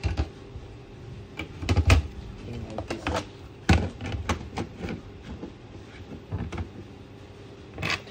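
A hard disk and a DVR's sheet-metal cover being handled and fitted together by hand: irregular sharp knocks and clicks of metal on metal and against the tabletop, loudest about two seconds in and again just before four seconds.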